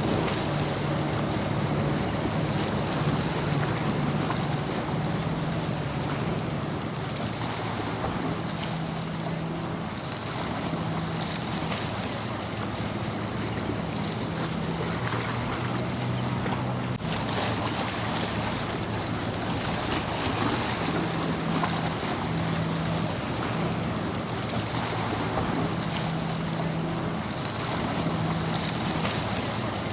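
Wind and surf noise with the low, steady drone of a boat engine, its pitch shifting a little now and then. Wind buffets the microphone.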